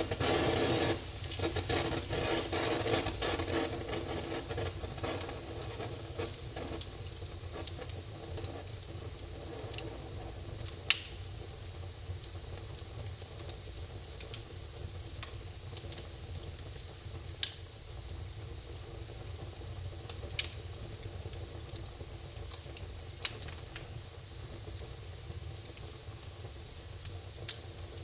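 Wood fire burning in a fireplace: a steady hiss and soft crackle, louder in the first few seconds, with sharp single pops every few seconds.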